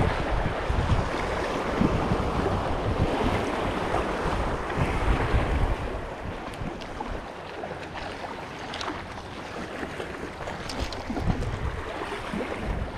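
Wind buffeting the microphone over the wash of the sea, gustier and louder in the first half, then easing, with a few faint clicks later on.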